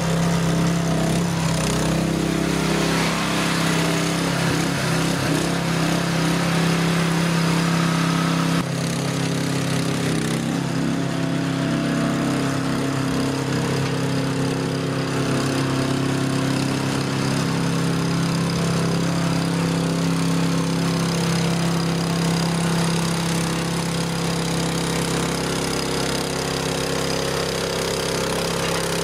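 Small engine of a Jansen RD-500 tracked mini dumper running steadily while its dozer blade pushes sand. The sound shifts suddenly and slightly about eight and a half seconds in.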